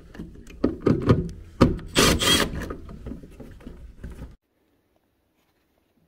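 Knocking and scraping of tools and parts as a furnace's inducer assembly is taken apart, with a louder rasping scrape about two seconds in. The sound cuts off abruptly a little over four seconds in.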